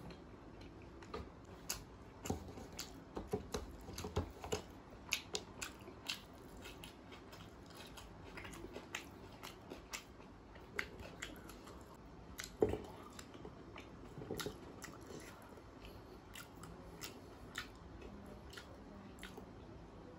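Close-miked chewing with sharp, irregular wet mouth clicks and smacks, busiest in the first several seconds, with one louder click about twelve and a half seconds in.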